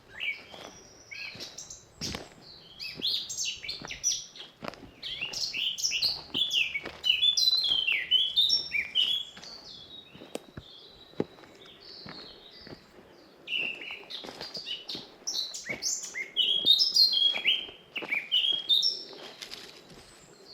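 Several forest songbirds singing, with quick runs of short, falling whistled notes in two busy bouts, over soft footsteps on a woodland path.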